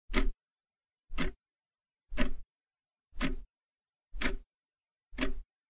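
Quiz countdown timer ticking like a clock: six short ticks, one a second, counting down the answer time.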